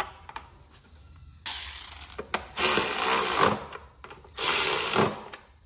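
Milwaukee cordless electric ratchet running in three short bursts, each under a second, driving in a bolt.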